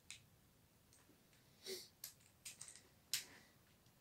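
Faint, scattered clicks and taps of LEGO Technic plastic parts being handled and pressed together on a model, about half a dozen, the sharpest a little after three seconds in.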